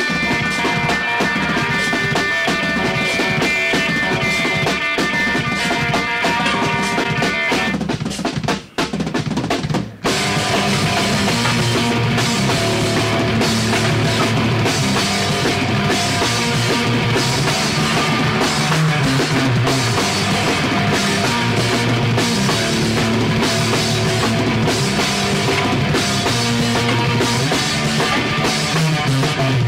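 Background music: a sustained pitched passage, a short break about eight seconds in, then a drum kit and bass come in at about ten seconds and carry a steady beat.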